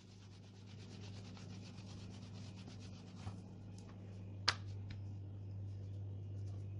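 Rolling pin rolling out roti dough on a floured granite counter: a soft, steady rubbing over a low hum, with one sharp click about four and a half seconds in.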